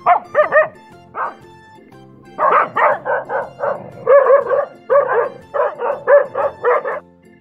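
Dog barking repeatedly in quick runs of several barks, over background music.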